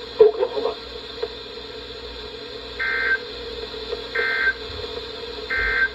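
Emergency Alert System end-of-message data burst sent three times: three short warbling two-tone digital chirps about a second and a half apart, over a steady radio hum.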